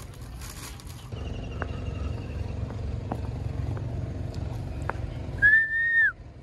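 A steady low rumble with a few faint clicks, then about five seconds in one loud, flat-pitched horn beep lasting under a second, most likely a vehicle horn.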